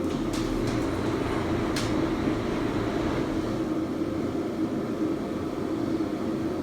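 Steady mechanical hum, with a couple of faint clicks early on.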